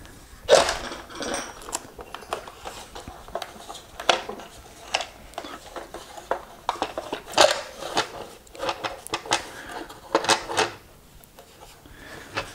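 Handling noise from an electric unicycle's plastic shell as it is turned over and repositioned: an irregular series of clicks, knocks and short scrapes, the louder knocks about half a second, four seconds, seven and a half seconds and ten seconds in.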